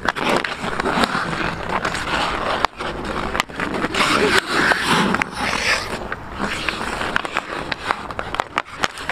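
Ice hockey skate blades scraping and carving on rink ice during a short sprint race, in rising and falling surges of hiss, with sharp clicks and knocks scattered throughout.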